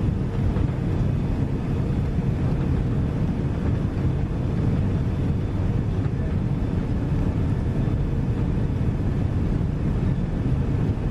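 Steady low roar of engine and airflow noise inside the cabin of a Boeing 767-300ER on approach to landing.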